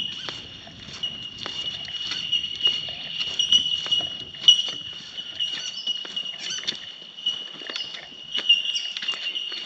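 Outdoor bush ambience: a steady high-pitched drone with many irregular light patters and clicks, and a low rumble of thunder dying away in the first second.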